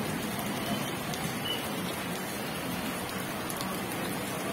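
Chicken satay skewers sizzling over a long charcoal grill: a steady crackling hiss with scattered small pops.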